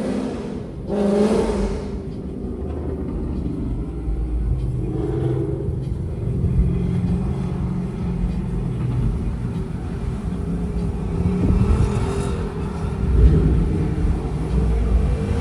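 A car engine running and revving while driving, a steady low drone with a brief rushing swell about a second in.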